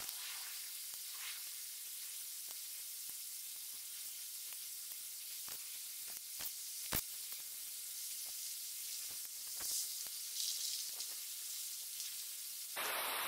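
Mint sprigs picked by hand: faint rustling of leaves and small snaps of stems, scattered over a steady soft hiss, with one sharper snap about halfway through.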